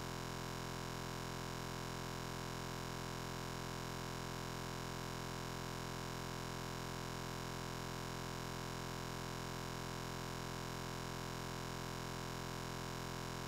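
A steady, unchanging electronic buzz with a fast, even flutter, like a tiny scrap of audio repeated over and over: an editing or encoding glitch rather than a real-world sound.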